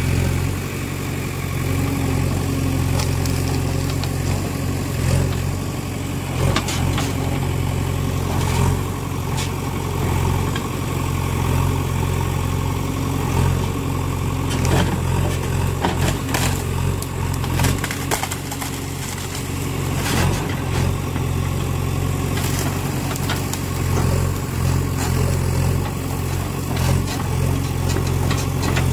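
Diesel engine of a JCB 3DX backhoe loader running steadily under work, with scattered sharp knocks and clatter.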